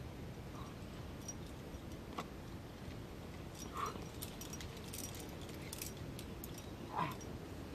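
Metal climbing gear, carabiners and quickdraws, clinking lightly in scattered short clicks, most of them about halfway through, over steady low background noise, with a few brief soft sounds.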